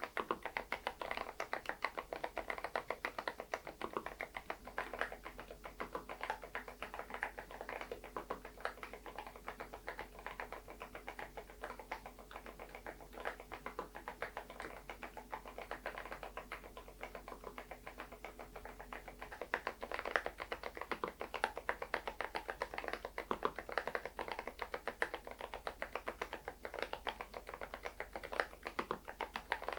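Continuous typing on an SPM PL108W full-size mechanical keyboard fitted with stock, unlubricated Moksae silent switches: a dense, unbroken run of keystrokes.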